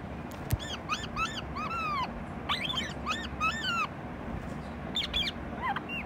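Rose-ringed parakeet calling in quick runs of short notes, each rising then falling in pitch, with a pause between the runs and a few more calls near the end. A single sharp knock about half a second in.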